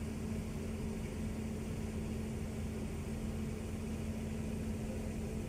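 Engine running steadily: an even low drone with one constant hum tone over it.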